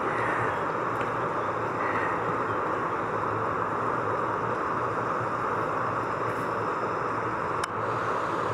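Steady running noise of a moving vehicle, with a low hum underneath and no change in level.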